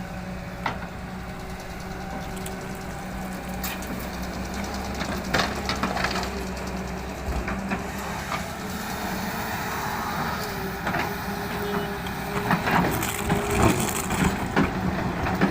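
Excavator's diesel engine running steadily, with scattered knocks and a denser run of clattering near the end as gravel is scooped and dumped.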